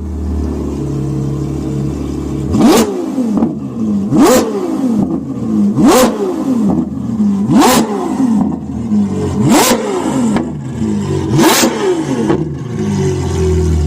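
Ferrari 812 GTS's V12 engine idling, then revved hard six times in quick blips, each shooting up in pitch and dropping straight back, about one every two seconds, before settling back to idle near the end.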